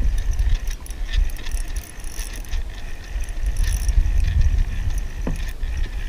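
Wind buffeting the microphone in an uneven low rumble, with scattered light mechanical clicks and ratcheting over it.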